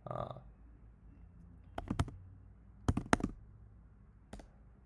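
Computer keyboard keys clicking in short runs of a few keystrokes: a burst about two seconds in, another about a second later, and a single click near the end.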